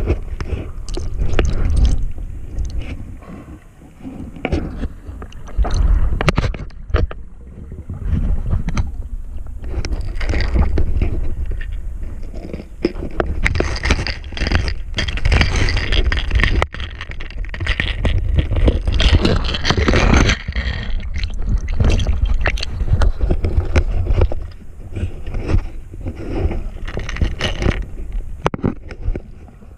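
Water splashing and sloshing against the camera, with a heavy low rumble and frequent knocks and scrapes that rise and fall in loudness.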